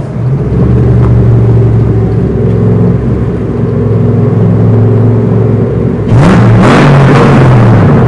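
Factory Five Racing Cobra replica's V8 engine and exhaust, heard from the open cockpit inside a tunnel: a steady low running note, then about six seconds in the throttle opens, the engine gets much louder and its pitch climbs as the car accelerates.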